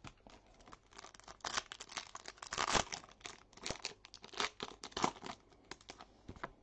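Foil wrapper of a trading-card pack being torn and crinkled, a dense run of crackles, loudest in the middle.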